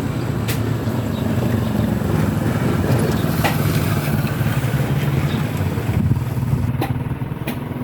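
An engine running steadily at an even, low hum, with a few sharp clicks over it.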